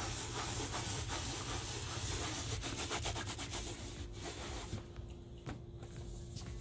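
A cloth scrubbing a small camping pan in a metal sink: quick back-and-forth rubbing strokes that ease off about five seconds in.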